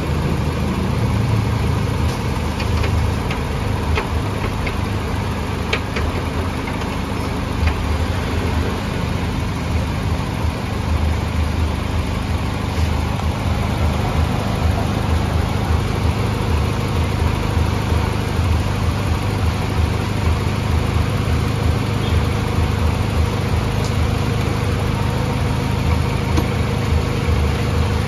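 1996 Honda Civic's four-cylinder engine idling steadily with the air conditioning switched on, during a refrigerant (Freon) recharge.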